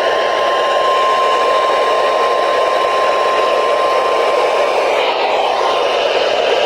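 NOAA Weather Radio warning alarm tone, a steady single tone of about 1050 Hz, heard through a radio receiver over heavy static hiss. The tone cuts out about four and a half seconds in, leaving the static.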